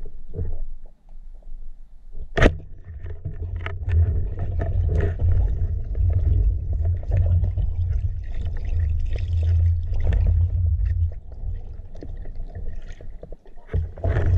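Underwater, a speargun fires with one sharp crack, then water churns and rushes around the camera for several seconds as the diver moves with the fish on the line.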